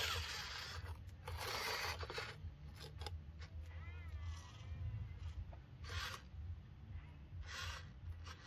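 A few short rasping scrapes, the longest starting about a second in and lasting about a second, over a steady low hum.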